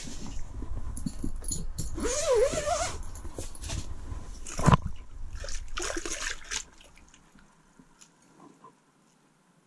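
Rustling and scraping handling noise with a short, wavering whine about two seconds in and a sharp knock near five seconds. The noise stops about seven seconds in.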